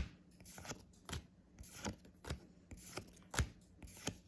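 Pokémon trading cards being handled and flipped through one at a time, each card giving a short crisp snap or rustle, about two a second.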